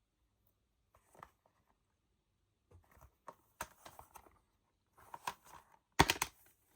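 Plastic Blu-ray case being handled: scattered light clicks and rustles, then a few sharp, louder plastic clicks about six seconds in.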